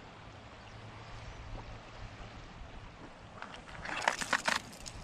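Steady hiss of wind and water, with a short run of rustles and clicks from about three and a half to four and a half seconds in.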